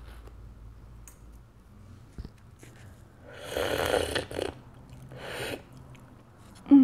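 Slurping the broth out of an opened balut duck egg held to the lips: a long noisy sip about three seconds in and a shorter one about five seconds in. A brief loud hum of the voice comes right at the end.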